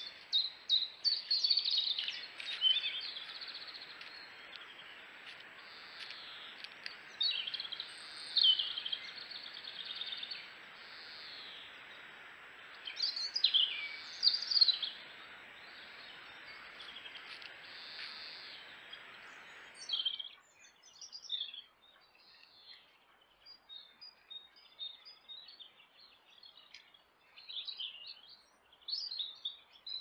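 Woodland songbirds singing, many short chirping phrases overlapping, over a steady hiss. The hiss cuts off suddenly about two-thirds of the way through, and softer, sparser bird calls carry on.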